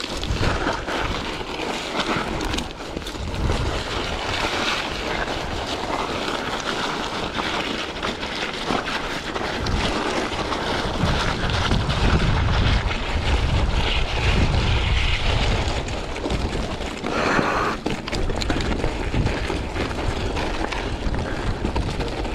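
Wind buffeting the microphone in heavy low gusts, strongest around the middle, over the rattle and tyre crunch of a Trek Marlin 5 mountain bike riding over gravel and rocks.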